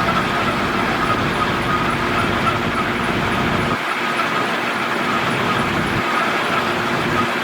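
Heavy diesel earthmoving machinery running steadily, with a steady high whine over the engine noise.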